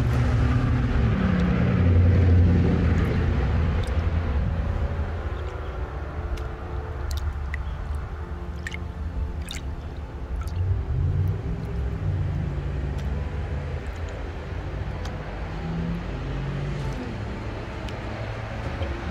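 Water sloshing and trickling as a plastic gold pan is shaken and dipped in a tub of water to wash away black sand, with a few small clicks and splashes. Under it runs a steady low motor rumble.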